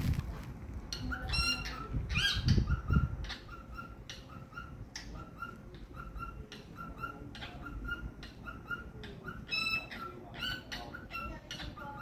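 Cockatiel singing: a run of short, repeated chirping notes at about two a second, with a few louder rising whistles mixed in near the start and again near the end.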